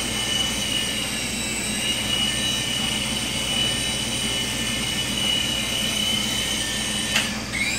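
Auldey SkyRover Navigator toy RC helicopter's small electric motors and rotors whining steadily in flight. Near the end there is a click, the whine dips briefly, then rises again as the motors spin back up.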